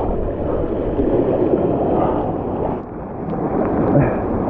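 Surf washing and churning over shallow reef rocks around a wading angler, swelling and easing with the waves, with wind buffeting the microphone.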